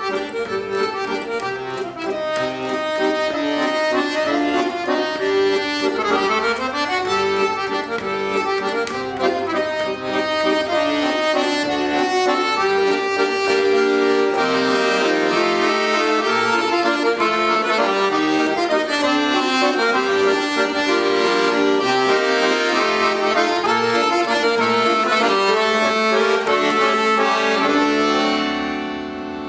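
Solo accordion playing a tune, a melody over sustained chords, easing off near the end.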